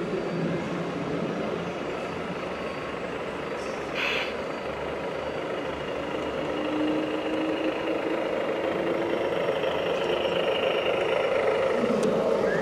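Radio-controlled scale Mercedes-Benz truck running slowly, its electronic sound unit playing a truck diesel engine, with a short air hiss about four seconds in.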